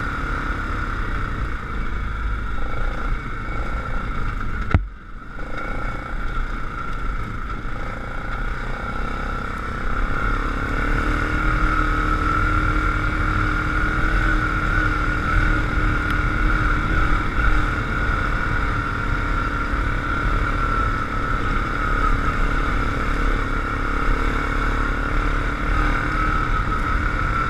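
Yamaha Grizzly 700 ATV's single-cylinder engine running as it rides along a trail. A sharp knock comes about five seconds in, followed by a brief dip in the engine sound; the engine then holds a steady speed for the rest of the stretch.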